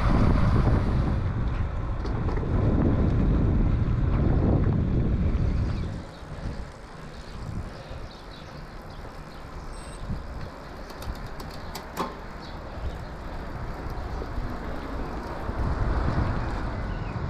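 Wind buffeting the microphone of a camera riding on a moving road bike, a loud low rumble; about six seconds in it drops to quieter rolling road noise with a few light clicks.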